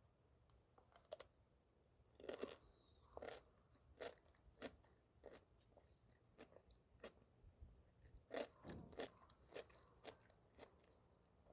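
A person biting into and chewing a homemade fridge dill pickle: a run of quiet, sharp crunches, roughly one every half second to second.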